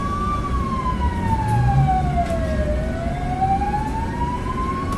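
Police car siren wailing: one slow fall in pitch over about two and a half seconds, then a slow rise back up.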